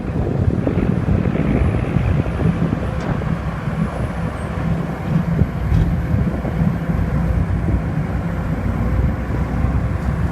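Heavy diesel engines of an excavator and a dump truck running steadily in a low drone, with wind noise on the microphone.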